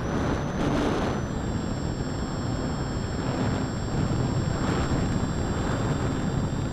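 Small battery-powered RC model plane's electric motor and propeller running in flight, a high steady whine heard from the plane itself under heavy wind rush on the microphone. The whine steps down slightly in pitch about a second in as the throttle is eased.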